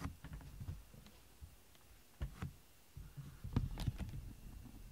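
Soft rustling and handling noise with a few short knocks, the loudest about two and a half and about three and a half seconds in.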